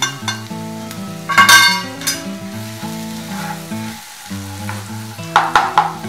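Ground spices, green chillies and ginger paste sizzling in hot oil while a spatula stirs and scrapes them around a non-stick frying pan. The stirring strokes come loudest about a second and a half in and again near the end, over soft background music.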